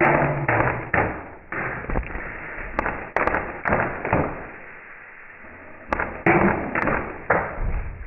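ASG Scorpion Evo electric airsoft gun fired semi-automatically at a target, in clusters of three or four sharp shots about half a second apart, separated by short pauses.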